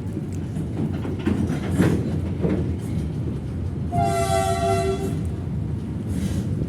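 Ballast train pushed by a CC300 diesel-hydraulic locomotive rumbling along the track with wheel knocks, and one horn blast of about a second about four seconds in.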